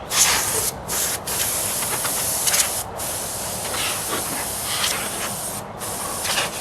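Nearly empty can of compressed-air duster spraying: a steady hiss in long spurts, broken by a few short pauses.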